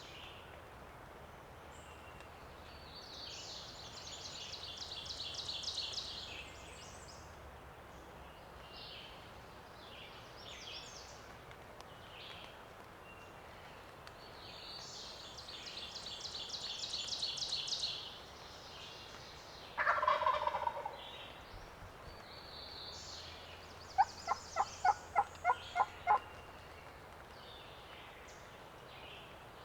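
A wild turkey gobbler gobbles once, loud and rattling, about twenty seconds in, followed a few seconds later by a run of about seven sharp, yelp-like notes, the loudest sounds here. Twice, a small songbird sings a high, repeated phrase that grows louder over a couple of seconds.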